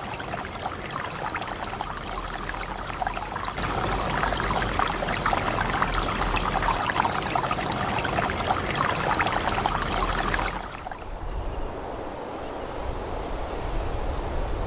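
Steady rush of running water, like a stream. About eleven seconds in it changes abruptly to a quieter, duller rush.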